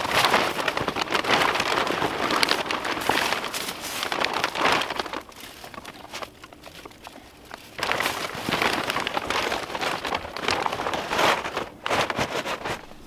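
Clear plastic greenhouse sheeting crinkling and rustling as someone pushes through it, in two bouts with a brief lull between.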